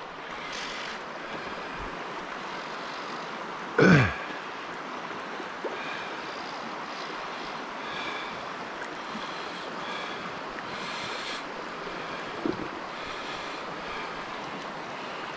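Steady rush of flowing creek water. About four seconds in there is one short, loud sound that falls sharply in pitch.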